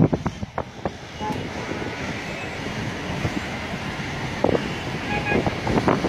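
Wind blowing on the phone's microphone over the steady sound of road traffic below, with a few knocks in the first second.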